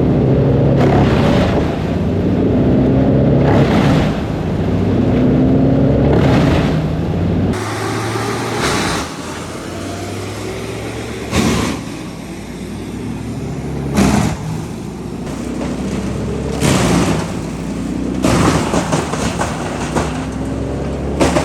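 Large wood chipper's engine running under load as it chews through a huge piece of dead elm, its note wavering as the log feeds in, with sharp cracks every two or three seconds as the wood is bitten off and split.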